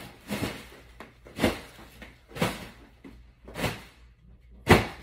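Bed linen being smoothed and tucked around a mattress by hand: five short swishing thumps about a second apart, the last the loudest.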